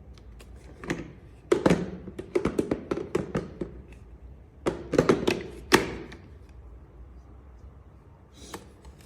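Irregular clusters of hard clicks, taps and knocks, as of the plastic parts of a vacuum cleaner being handled while it is switched off.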